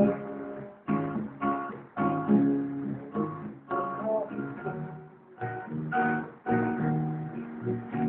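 Acoustic guitar strumming chords in a steady rhythm, with a bass guitar playing low notes under it.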